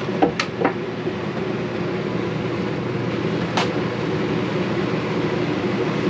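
A steady machine hum, with a few light clicks and knocks of small objects being handled, three close together near the start and one more about three and a half seconds in.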